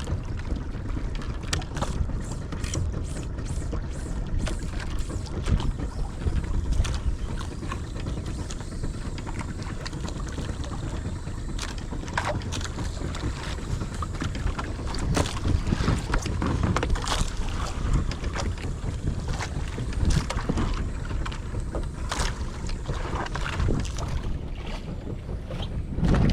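Small fishing boat at sea: wind buffeting the microphone over a steady low rumble of water and hull, with frequent short knocks and slaps.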